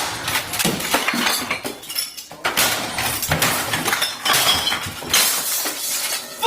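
A dense, continuous run of clinking and rattling, many small sharp knocks, like glass or hard objects jostling.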